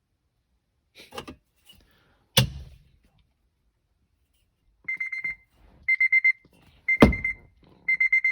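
Electronic alarm beeping: high, even beeps in quick groups of four, about one group a second, starting about five seconds in. Before it there is a soft knock and a sharp slap, and another sharp slap lands over the beeping near the end.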